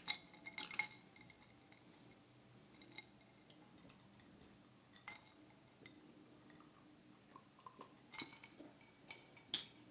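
Someone sipping a drink from a wine glass: faint small clicks and sips, quiet for the most part, with a few sharper clicks near the end.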